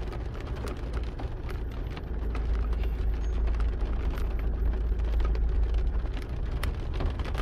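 Heavy rain drumming on a car's windshield and roof, with scattered sharp drop hits, over the steady low rumble of the car driving slowly, heard from inside the cabin.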